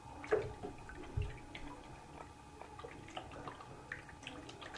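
A hand rubbing and splashing in shallow water in a bathroom sink: faint scattered drips and small splashes, with a couple of soft knocks in the first second or so.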